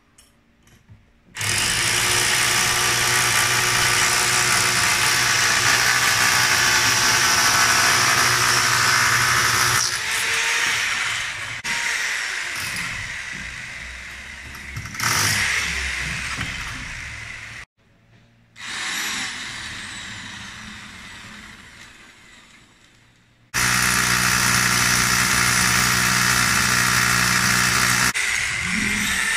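Large corded hammer drill with a long masonry bit boring into a concrete balcony slab. These are the first holes drilled before the concrete is broken out. It starts about a second and a half in, runs in long bursts that slow and wind down a few times, cuts out for a moment just past halfway, and runs steadily again near the end.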